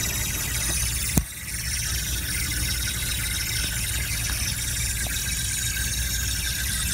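Honda CR-Z's A/C refrigerant piping hissing steadily over a low rumble: the normal pressure equalization from the high side to the low side of the system after the compressor has been used. One sharp click about a second in.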